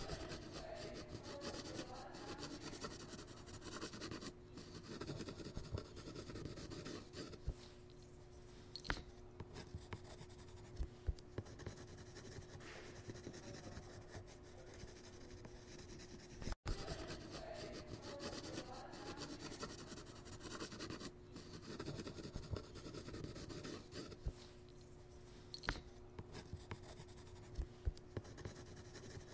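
Quiet scratching and rubbing of drawing strokes across a surface, a continuous scribble with occasional small ticks over a faint steady hum. It drops out for an instant about halfway through, and the same stretch of sound then repeats as a loop.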